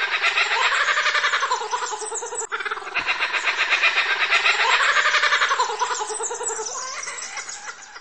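Laughing kookaburra calling its laugh: a long run of rapid, cackling notes that swells up and down in pitch. It comes in two phrases with a short break between them, and fades near the end.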